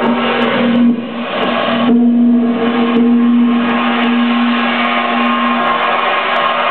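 Live experimental noise music: a loud, dense wall of distorted sound from heavily processed electric guitar, with a steady low note held through most of it that drops out briefly about a second in.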